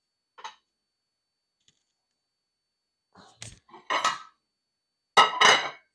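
Metal kitchen utensils being handled on a counter: a few clinks and knocks, then a loud metallic clatter with a brief ring about five seconds in.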